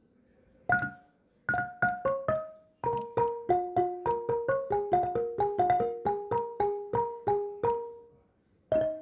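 Background music: a keyboard playing a slow melody of single struck notes, each one fading out. There are a few notes with pauses at first, then a steady run, and a short break near the end.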